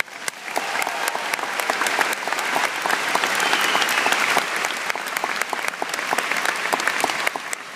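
A large audience applauding, swelling over the first second or so and dying away near the end.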